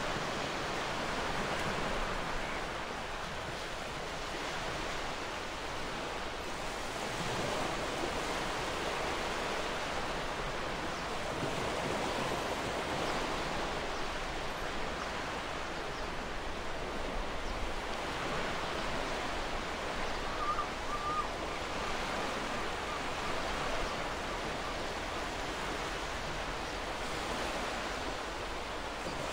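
Ocean surf washing steadily, swelling and easing gently, with a brief faint chirp about twenty seconds in.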